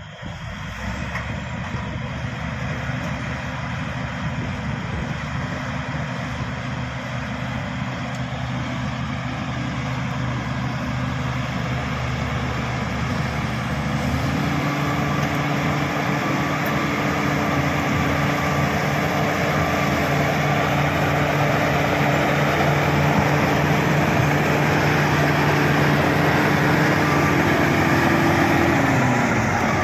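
Shantui SD16 bulldozer's diesel engine running under work. Its engine note steps up in pitch about halfway through, holds, then drops back near the end.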